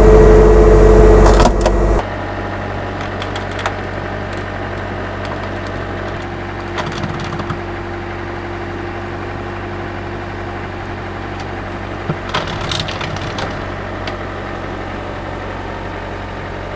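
Skid steer engine running, loud and revved for about the first two seconds, then dropping to a steadier lower hum. Scattered sharp cracks and creaks come through as the plastic cooler under the machine's weight gives way, its top busting in and cracking.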